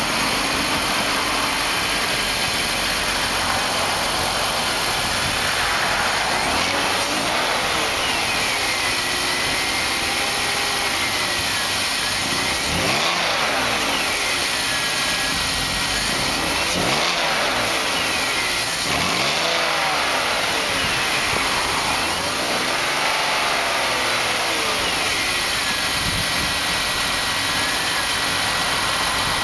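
2003 BMW 325i's 2.5-litre inline-six engine idling steadily, heard from the open engine bay.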